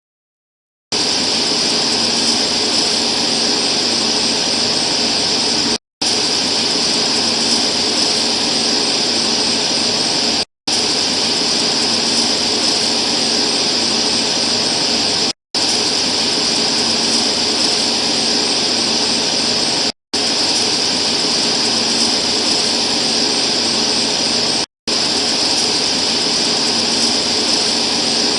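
Loud, steady hiss-like noise, brightest in a high band, with no voice in it. It comes in stretches of about five seconds, each cut off by a short silent gap.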